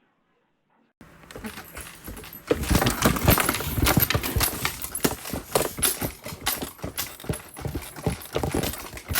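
Dense, irregular clattering and rattling of hard objects, starting about a second in and growing much louder a second and a half later.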